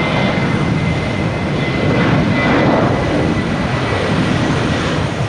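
Jet airliner taking off at full power: a loud, steady jet engine rush with a thin high whine, swelling slightly a couple of seconds in.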